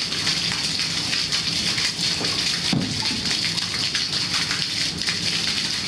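Water rushing steadily from the open end of a live, cut copper main water line, splashing into a plastic bin and onto the floor as it is left running to flush out dirty water. The flow is at less pressure than expected: not really a lot of pressure.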